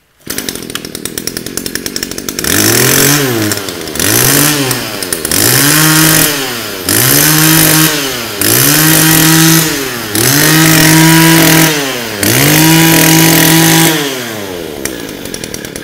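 Mitsubishi TUE21 21cc two-stroke brush cutter engine catching right at the start and idling, then revved up and down seven times in quick succession before dropping back to idle. It runs very smoothly.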